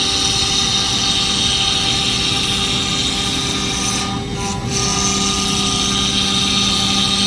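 CNC router spindle running steadily with a high whine and hiss as it makes a flattening pass over a wood-and-epoxy board. About four seconds in, the hiss briefly drops, then a low hum joins.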